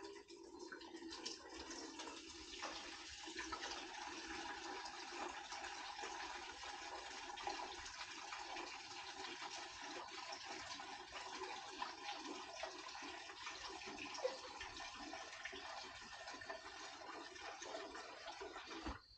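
Gasoline being poured into a container in a steady, faint stream, to soak a chainsaw chain in it; the pour stops abruptly near the end.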